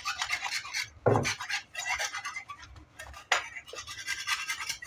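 Metal hand scraper scraping dried paint spatters off terracotta floor tiles in short, uneven strokes, with a knock about a second in.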